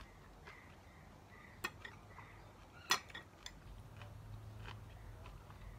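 A spoon clinking against a bowl a few times while food is scooped, the sharpest clink about three seconds in.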